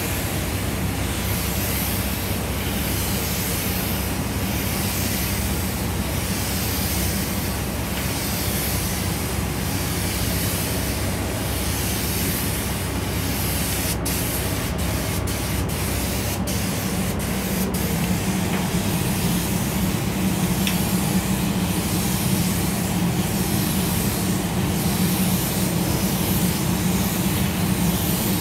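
Hose-fed compressed-air paint spray gun hissing steadily as it sprays paint onto a car body. The hiss swells and fades about once a second over a steady low hum.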